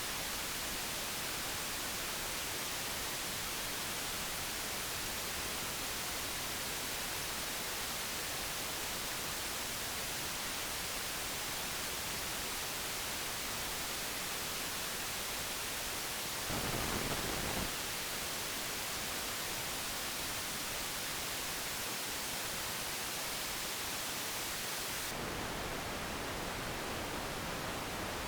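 Amplified electrical noise of an NPN bipolar junction transistor played as sound: a steady, even hiss with no popcorn clicks, the clean noise of a known-good device. About two-thirds of the way through it swells into a louder rush for about a second, and near the end the hiss turns duller, with less treble.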